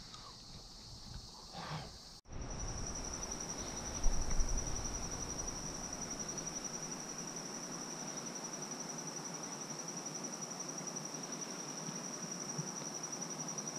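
Insects trilling: a steady, high-pitched, finely pulsed trill over outdoor riverside ambience. It starts abruptly about two seconds in. A couple of low thumps come about four seconds in.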